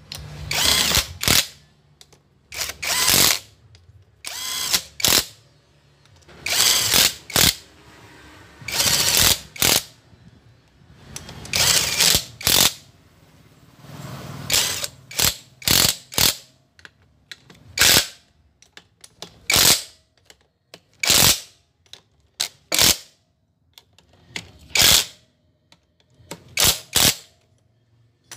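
Cordless power driver running bolts into a Honda Supra/Grand motorcycle engine's crankcase in repeated short bursts, each under a second with a second or two between them. The bursts grow briefer toward the end as the bolts seat.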